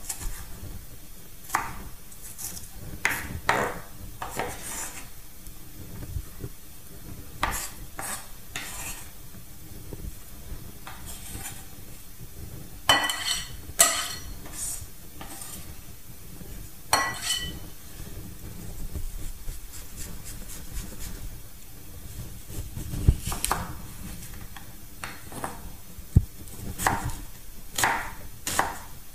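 Chef's knife chopping an onion on a wooden chopping board: irregular knocks of the blade on the board, with a few louder, ringing knocks about halfway through.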